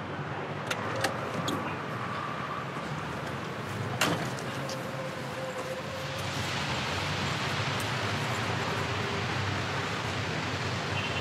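Car door handling: a few light clicks in the first two seconds, then the door shut with one sharp slam about four seconds in, over a steady hiss of outdoor ambience.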